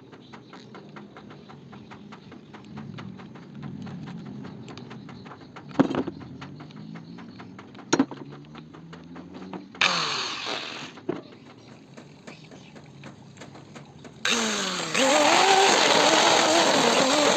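Light rapid ticking and a few sharp clicks, then about fourteen seconds in a small electric power tool starts and runs loudly, its whine wavering up and down.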